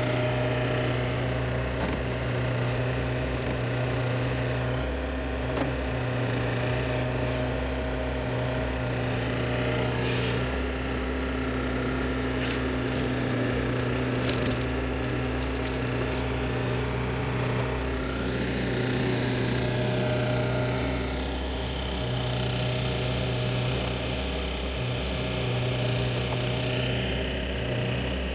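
Neuson 6003 excavator's diesel engine running steadily, with a few faint clicks about halfway through.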